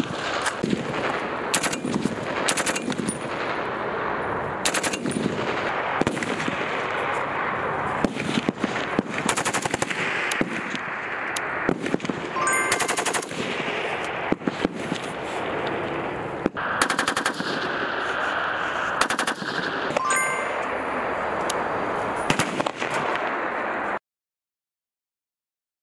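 Rifle and light machine gun fire: single shots and short rapid bursts, one after another over a constant background noise. It cuts off to silence about 24 seconds in.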